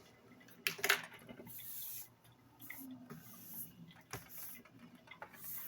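Light handling noises around a plastic coffee grinder: a sharp click or knock about a second in and another near the middle, with short scratchy, rustling scrapes in between. The grinder motor is not running.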